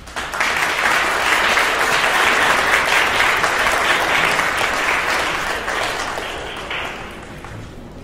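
Audience applause that starts about half a second in, holds steady, then fades out over the last couple of seconds.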